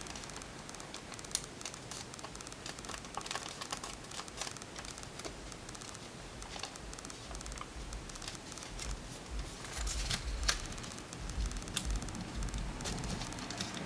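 Origami paper crinkling and crackling as it is folded and creased by hand, with many small irregular clicks. Soft low bumps join in during the second half as the paper is pressed flat on the table.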